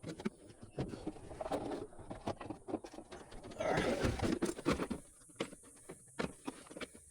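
Metal hand tools clicking, knocking and scraping in an irregular run, with a louder stretch of scraping and rattling past the middle, from work to free a condenser fan blade from its motor shaft without an extractor.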